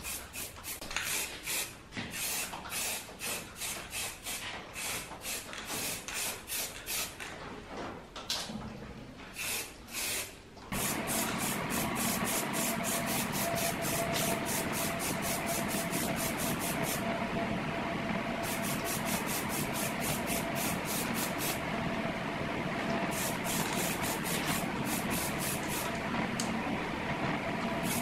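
Sheet-metal parts of a vegetable slicer being sanded by hand with quick back-and-forth scraping strokes. For about the first ten seconds the strokes come in short irregular runs with pauses. Then they turn continuous and even, about three strokes a second, over a faint steady hum.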